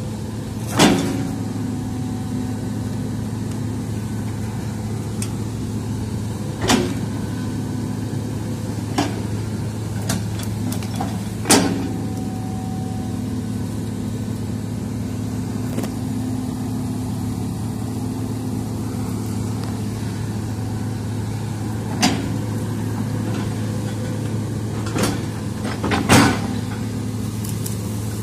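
Hitachi hydraulic excavator's diesel engine running steadily as it digs, broken by several sharp metallic clanks from the bucket and arm linkage, the loudest about a second in and near the end.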